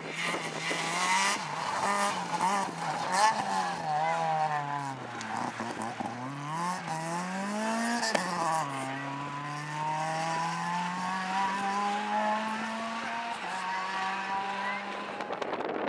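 Renault Twingo R2 rally car's 1.6-litre four-cylinder engine revving up and down quickly as the car slides through a loose, muddy corner, dropping low, then climbing hard. After a gear change about eight seconds in it accelerates away with a long, steady rise in revs.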